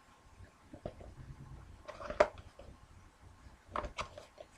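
Light handling noises from a sealed trading-card box: scattered soft clicks and rustles, with a sharper tap about two seconds in and a few more knocks near the end.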